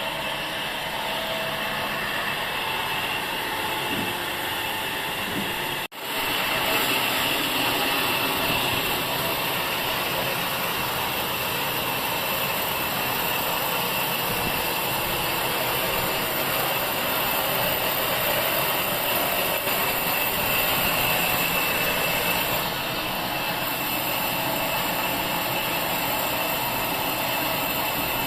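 Sawmill machinery running steadily, a continuous mechanical noise with a high whine. It cuts out suddenly for an instant about six seconds in, then resumes.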